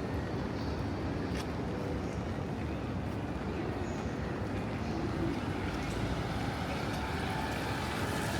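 Steady city street noise on a rainy day: a low traffic rumble with a hiss that grows louder near the end.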